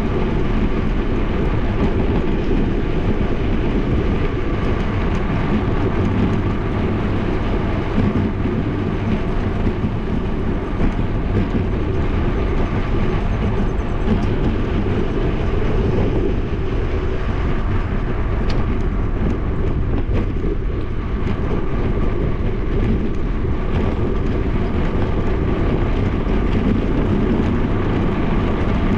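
Wind buffeting a bike-mounted GoPro's microphone during a fast downhill ride, heard as a steady, dense rumble, mixed with tyre noise on the asphalt.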